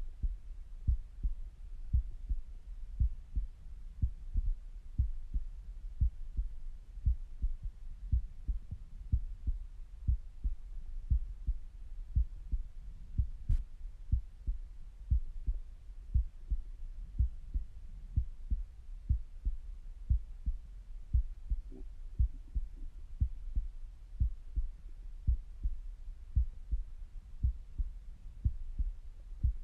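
Resting human heartbeat heard through a stethoscope: a steady, even lub-dub of low thumps. About two-thirds of the way in there is a brief, faint stomach gurgle.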